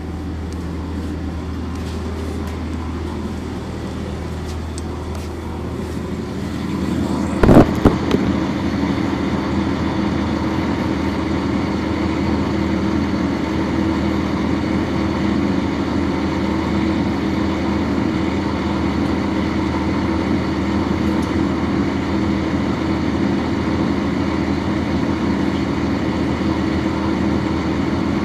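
1999 NovaBus RTS transit bus heard from on board: its Cummins ISC diesel runs with a low steady hum, then gets louder about six seconds in as the bus gets under way. A couple of sharp knocks come about seven to eight seconds in, and after them the engine keeps running steadily and louder.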